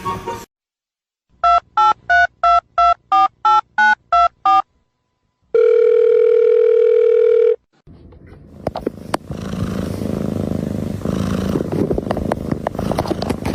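Telephone keypad tones: about eleven short, evenly spaced beeps as a number is dialled, then a steady tone lasting about two seconds. After that, from about eight seconds in, a crackling, rustling noise with scattered clicks.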